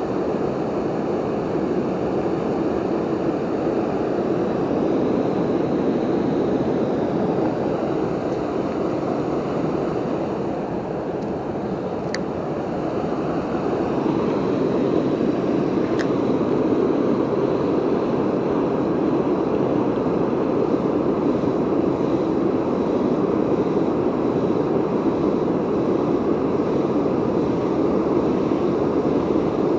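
Steady rush of a river waterfall, a constant roar of falling water. Two brief clicks stand out over it, about twelve and sixteen seconds in.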